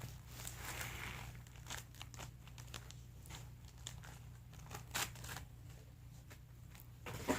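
Cardboard and paper being handled and crinkled, with scattered small rustles and ticks and a sharper tap about five seconds in and again near the end.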